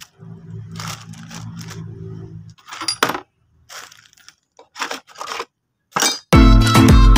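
Small steel balls from a worm steering box's recirculating-ball nut clinking and rattling in a plastic tray, with a plastic bag crinkling, in short scattered bursts over a low hum. Loud music with strings starts about six seconds in.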